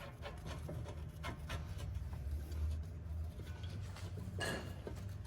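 Faint clicks and rubbing of metal brake parts being handled and fitted by hand, over a steady low rumble, with a slightly louder scrape or clink about four and a half seconds in.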